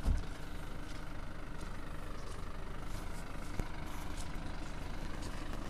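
Diesel engine of a livestock transport truck idling: a steady low hum. A brief low thump comes right at the start.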